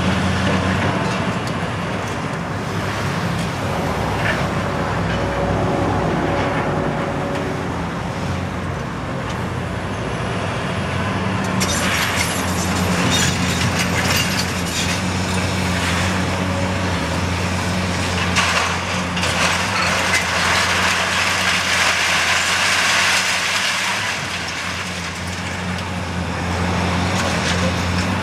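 Caterpillar 329D excavator's diesel engine running steadily, with crunching and cracking of demolition rubble that grows louder from about twelve seconds in.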